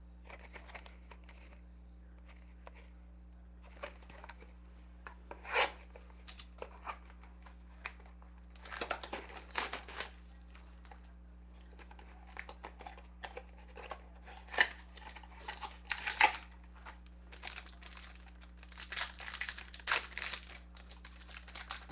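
Plastic shrink wrap being torn and peeled off a factory-sealed trading-card box: irregular crinkling and tearing rustles in bursts, with a couple of sharp clicks of the box being handled, over a steady low electrical hum.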